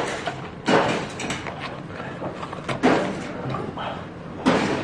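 Eating sounds: spicy jjamppong broth slurped from a spoon, with three louder noisy slurps or breaths, about a second in, near three seconds and near the end.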